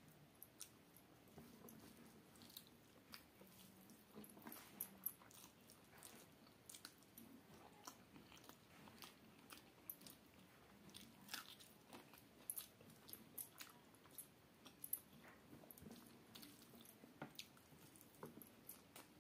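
Faint close-up eating by hand: fingers mixing rice and fried vegetables on a steel plate, with chewing and crunchy bites heard as many scattered soft clicks and ticks.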